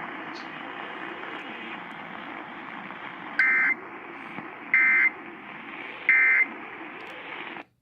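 Emergency Alert System end-of-message signal: three short bursts of data tones, just over a second apart, over steady radio hiss. They mark the end of the alert. The hiss cuts off near the end.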